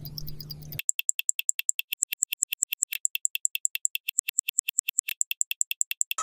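Fast, even ticking of a mechanical wristwatch, about eight sharp ticks a second with silence between them. A low hum underneath stops about a second in, when the ticks turn loud and clear.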